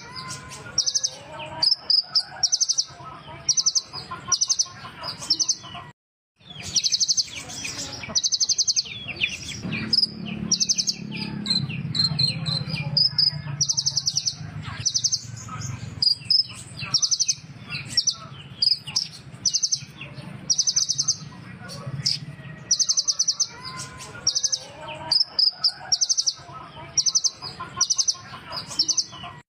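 Olive-backed sunbird ('kolibri ninja') singing: quick runs of high-pitched chirps and twitters repeated over and over, with a short break about six seconds in.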